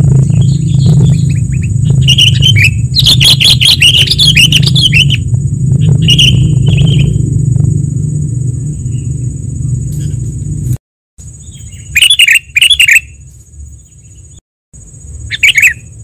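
Recorded sooty-headed bulbuls (kutilang) calling in repeated bursts of quick chirps, played as a bird-lure track. Under them runs a steady low rumble that cuts out abruptly about two-thirds of the way through, and a thin steady high-pitched buzz.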